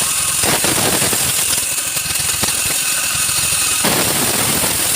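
A loud motor-driven machine running steadily with rapid pulsing, its sound changing briefly about half a second in and again near four seconds.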